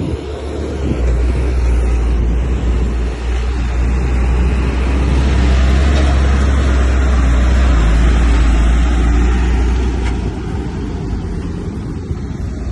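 Heavy earthmoving machine's diesel engine running loud with a deep low rumble, swelling about a second in and easing off near the end.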